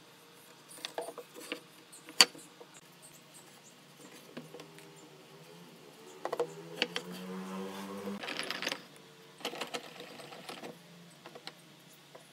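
Wooden boards and clamps handled on a workbench: scattered knocks, the sharpest about two seconds in, a short scrape just past the middle and a clatter after it. Underneath, a low hum rises in pitch in the middle.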